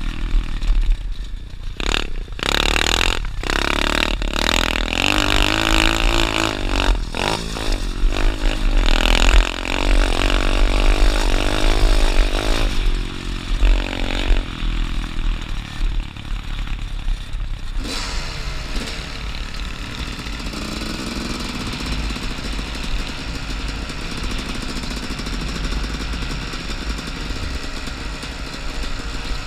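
Dirt bike engine revving up and down repeatedly as the bike is ridden, with a few sharp knocks near the start. About eighteen seconds in it settles into a steadier, quieter drone.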